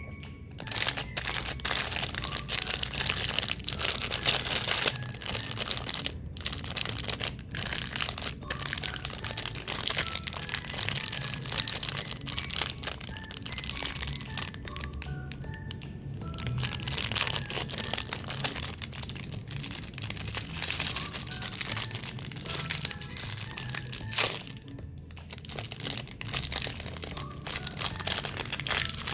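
Plastic snack wrappers crinkling and crackling as packaged cakes and cookies are handled and torn open, continuous and irregular, with a few brief pauses. Faint background music plays underneath.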